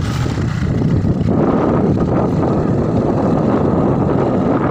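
Steady, loud wind rush over a phone microphone on a moving motorbike, with the bike's engine and road rumble underneath.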